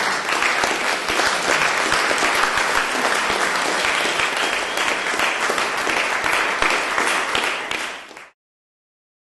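Audience applauding: dense, even clapping that fades out about eight seconds in.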